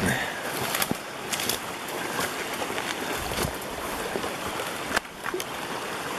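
Steady rush of a woodland brook, with irregular crunching footsteps in crusty snow at the water's edge.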